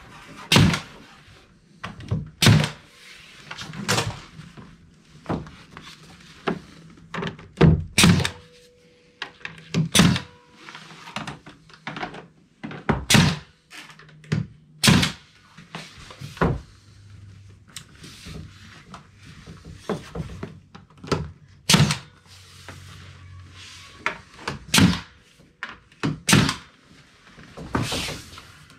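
Pneumatic finish nail gun firing one shot at a time, each a sharp clack, a second to a few seconds apart and irregular, driving nails through the split door jamb into the framing at the hinge points.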